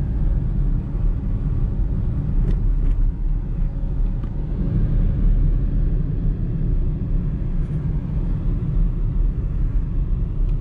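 Car driving slowly, heard from inside the cabin: a steady low rumble of engine and tyres on the road, with a few faint ticks.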